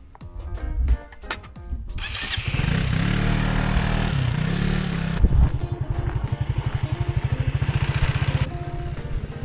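Sur-Ron Light Bee X electric dirt bike being ridden off-road, starting about two seconds in: a low drivetrain whine that rises and falls in pitch over a loud rush of wind and tyre noise, turning into a fast even pulsing from about halfway. Background music plays underneath.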